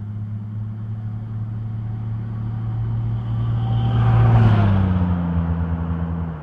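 Jeep Cherokee driving past: engine hum and tyre noise grow louder as it approaches, peak about four seconds in, then drop in pitch as it moves away.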